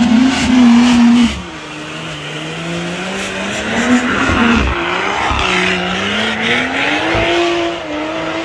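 A car doing a burnout: the engine is held at high revs, its pitch falling and rising, over the hiss and squeal of spinning tyres. The engine is loudest until about a second in, then drops back and climbs again.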